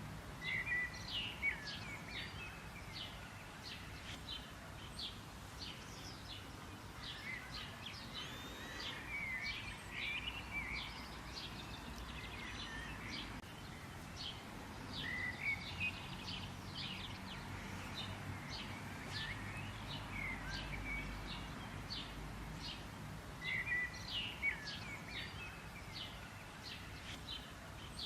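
Several songbirds chirping and twittering: many quick high notes throughout, with louder bursts of twittering now and then, over a steady low background rumble.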